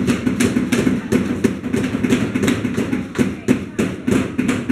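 Hammers tapping nails into small wooden craft kits, several children at once, giving quick, irregular knocks several times a second.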